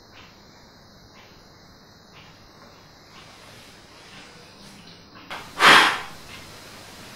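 A candle being blown out: a short puff of breath, then one strong blow about half a second long, a little past five seconds in. Before it, a faint hiss with a faint tick about once a second.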